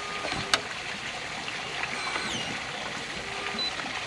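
One sharp click about half a second in from the keypad of an electronic keypad and fingerprint door lock as a button is pressed and held to lock it, over a steady background hiss. Faint short tones and a falling chirp follow near the middle.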